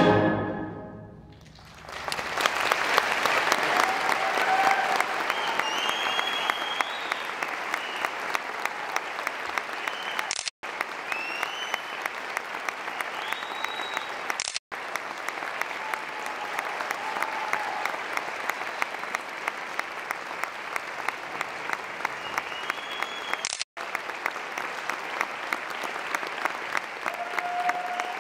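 A symphonic band's final chord dying away, then, after a moment's hush, an audience applauding and cheering, with whoops and whistles scattered through.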